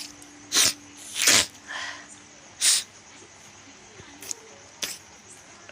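A person sneezing several times in short, sharp bursts.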